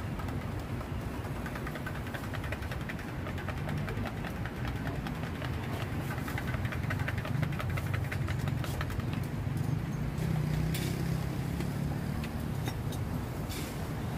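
Steady rumble of road traffic, with a spoon stirring fast in a stainless steel cup, ticking rapidly against the metal for several seconds, and a few sharper clinks of spoon on metal or glass in the second half.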